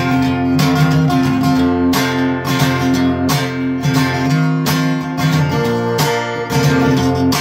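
Acoustic guitar with a capo, strummed in a steady rhythm of about two strokes a second: an instrumental break between sung verses.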